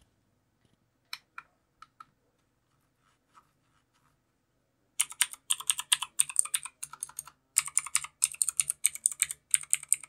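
Redragon K580 mechanical keyboard with clicky blue (Outemu Blue) switches being typed on. A few single key clicks come in the first two seconds, then from about halfway a fast, continuous run of sharp clicks.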